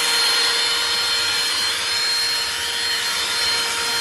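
Cordless handheld car vacuum cleaner running steadily while sucking up dirt: a constant motor whine over a rush of air.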